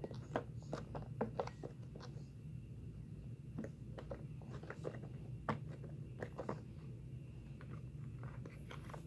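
Silicone push-pop fidget toy, its bubbles pressed one after another by fingers: an irregular string of soft pops and clicks over a steady low hum.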